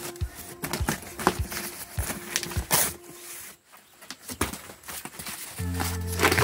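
Handling noise of cardboard packing: scattered knocks, scrapes and rustles, with footsteps, as a sheet of cardboard is fetched and lowered into a cardboard carton of strawberry trays. Background music comes in near the end.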